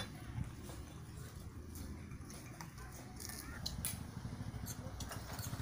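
Scattered light clinks and clicks of cutlery and dishes at a shared meal, a few sharper ones about three to four seconds in, over a low steady hum.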